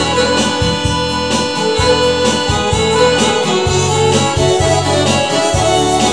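Korg Pa80 arranger keyboard playing an instrumental break: a keyboard melody over an auto-accompaniment of bass line and drums, with no singing.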